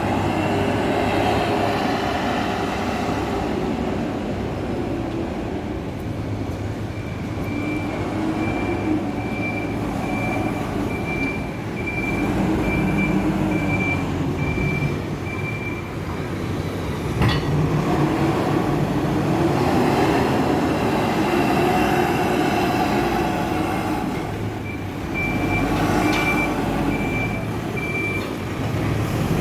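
Hidromek 102B backhoe loader working, its diesel engine rising and falling in pitch with the load. A high-pitched reversing alarm beeps steadily for several seconds about a quarter of the way in, and again near the end. There is a single sharp clank a little past halfway.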